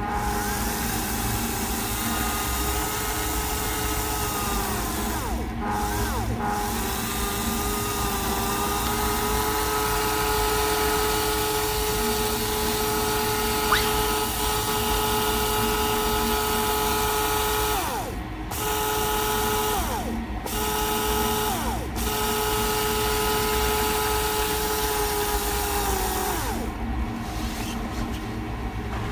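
IG-22GM planetary geared DC motor running, a steady gear and motor whine with several tones. Several times the pitch slides down as it slows and briefly stops, then it picks up again; one sharp click partway through.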